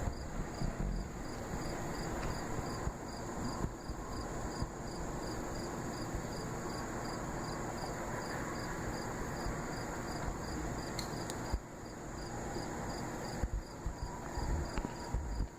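A cricket chirping in an even rhythm, about two to three short chirps a second, over a steady low rumbling background noise.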